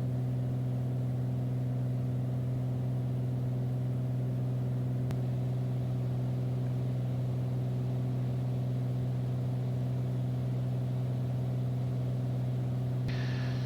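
Steady drone of a Beechcraft Bonanza's piston engine and propeller at climb power, heard inside the cabin as an even, unchanging hum. A faint click about five seconds in.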